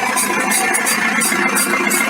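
Worn universal joint on a BMW E46 320d's propshaft at the differential squeaking in a repeating rhythm, about two or three times a second, over steady running noise from the car: the sign of a failing propshaft joint.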